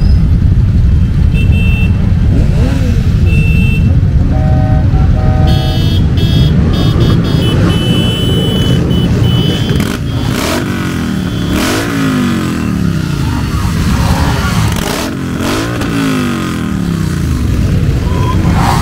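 A large pack of motorcycles running together, engines rumbling and revved up and down twice in the second half. Short horn blasts sound over the engines in the first half, several at once about six to eight seconds in.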